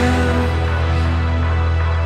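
Background music: a held chord over a steady deep bass note.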